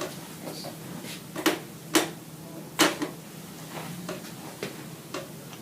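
Neck joints cracking during a seated chiropractic neck adjustment: three loud, sharp cracks in quick succession about a second and a half in, then a couple of fainter clicks.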